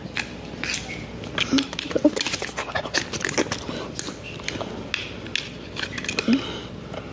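A house cat scuffling with a red string toy on a cloth mat: scattered scratching, rustling and sharp little clicks as it grabs and claws at the toy.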